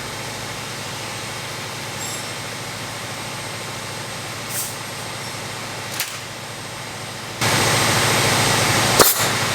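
Compressed air hissing through a Ferrari 308 GTS front brake caliper to force its pistons out, over a steady low hum. The hiss turns much louder about seven seconds in, and a sharp pop near the end is a piston coming free against the hockey puck.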